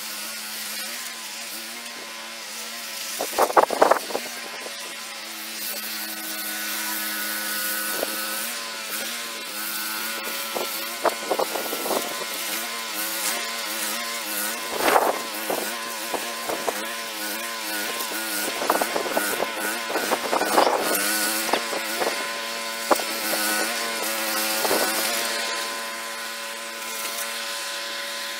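Walk-behind gas snowblower's small engine running steadily as it clears a snowed-in sidewalk, its pitch wavering slightly under load, with a few short louder bursts.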